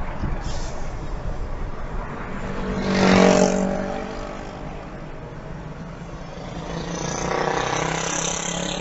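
Road traffic heard from a driving car: a vehicle passes with an engine note that swells and peaks about three seconds in, and another vehicle builds up near the end over steady road noise.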